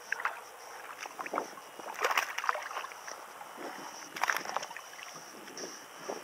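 Hooked bass splashing at the water's surface as it is reeled in and swung out of the water, with scattered smaller splashes and drips. The loudest splashes come about two seconds in and again about four seconds in.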